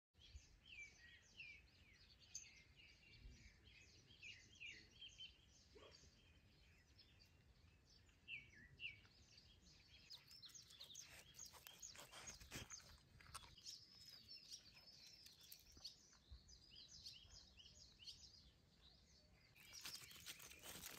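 Faint songbirds chirping and twittering outdoors in many short, quick calls. A louder rustling noise comes in near the end.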